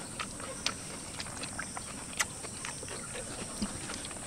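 Eating sounds: a steel spoon scooping rice from a steel serving bowl, with scattered small clicks and smacks of people eating by hand off banana leaves. The loudest click comes about two seconds in.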